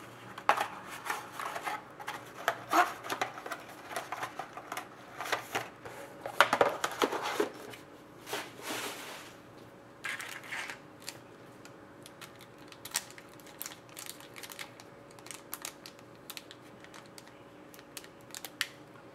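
Hands handling a cardboard trading-card box and a foil-wrapped card pack: rustling, scraping and small clicks, busier in the first half, with a brief rustle about nine seconds in and only scattered light ticks after that.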